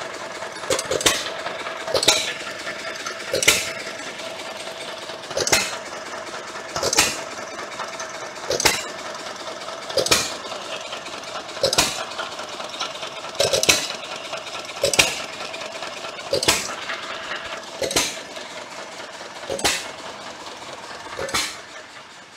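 John Deere 1-1/2 HP Model E hit-and-miss gas engine running on its own after restoration. It fires with a sharp bang about every second and a half and coasts on its flywheels between firings with a steady running sound.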